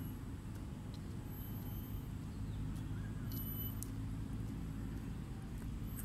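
Steady low outdoor rumble, with faint short high chirps that recur every second or two.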